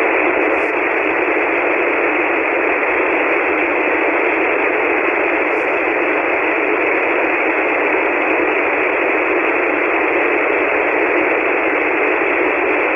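Steady static hiss from a shortwave receiver on an empty 40-metre single-sideband channel, squeezed into the narrow voice filter so it sounds thin and telephone-like. No station comes through: the other station has faded out as band conditions worsened.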